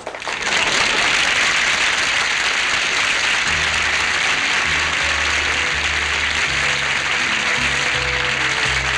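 Studio audience applauding, with the house orchestra starting an introduction underneath about three and a half seconds in: low bass notes stepping from pitch to pitch beneath the clapping.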